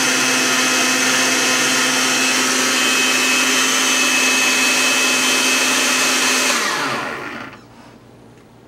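Countertop blender motor running steadily as it blends a green smoothie of spinach, mango and orange. About six and a half seconds in it is switched off, and its pitch falls as it spins down to a stop.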